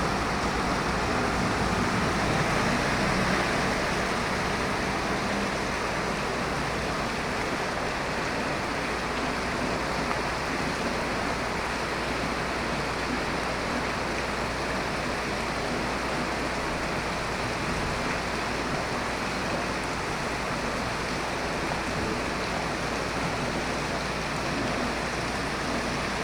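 Steady roar of a severe storm, wind and driving rain, loud and unbroken throughout.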